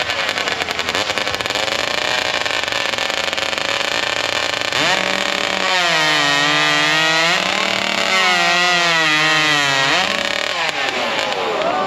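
Husqvarna 3120 racing chainsaw with an expansion chamber, revving up and down, then held at high revs twice for about two seconds each, with a short dip between, before dropping back.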